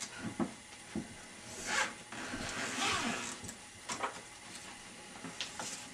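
A child's makeup kit case being handled and opened: light knocks and rustling, with a longer rasping scrape near the middle.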